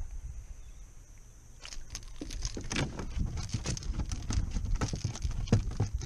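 A freshly landed redfish flopping on the plastic deck of a fishing kayak. Irregular slaps and knocks begin about a second and a half in and go on in a rapid patter.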